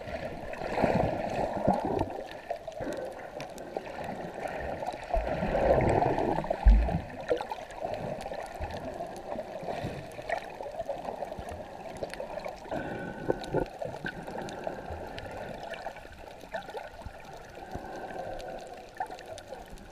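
Muffled underwater sound of a camera held beneath the surface while snorkeling: water gurgling and sloshing against the camera, with a few low thumps around five to seven seconds in.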